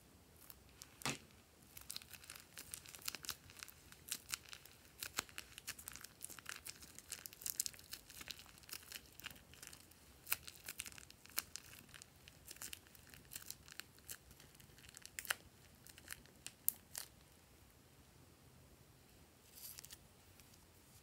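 Plastic piping bag full of foam beads crinkling and crackling as it is squeezed and handled, the beads squishing out into glue: a long run of quick, sharp crackles, then quiet with one short crinkle near the end.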